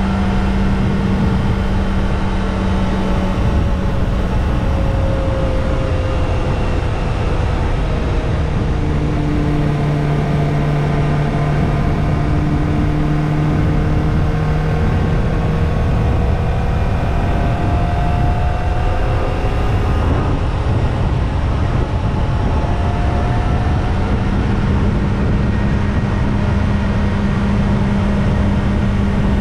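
Kawasaki ZX-25R's 249 cc inline-four with the stock exhaust, running steadily while riding, over a continuous rush of low noise. Its pitch dips for a while in the middle and rises again near the end.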